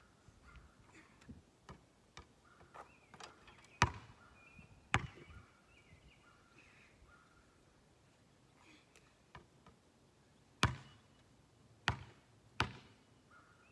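A basketball bouncing on an asphalt driveway: sharp, loud thuds about four and five seconds in, then three more near the end, the last two coming closer together. Faint bird chirps in the background.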